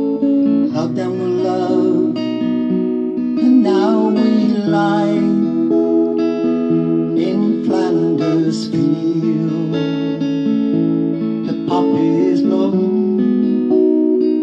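Acoustic guitar played as song accompaniment, chords ringing through an instrumental passage between sung lines.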